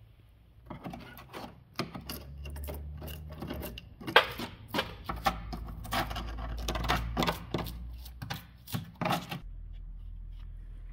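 Screwdriver scraping and picking at rusted steel and crumbling body filler on a car's rear wheel arch: a run of irregular clicks, scrapes and crackles that stops about nine seconds in, leaving a low steady hum.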